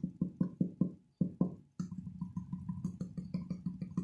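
Fingers drumming on the hollow ABS plastic body of a T-2359 Bluetooth speaker: a run of hollow knocks about five a second, turning into a faster roll about two seconds in.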